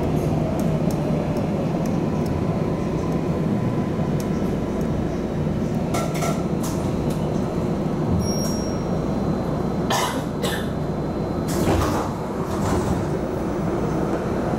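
MARTA rapid-transit railcar heard from inside, slowing to a stop at a station platform, with a steady low rumble from the car. After it stops there are a few sharp clicks and knocks in the second half, and a brief high tone near the middle.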